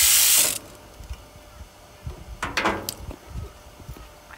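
Sheep shearing handpiece on an overhead drive running steadily, then shutting off about half a second in. After that only a few light clicks and knocks, the loudest about halfway through.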